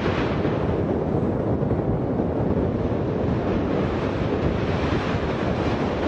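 Steady loud rushing roar of an erupting volcanic vent, with wind on the microphone, heaviest in the low end and unbroken throughout.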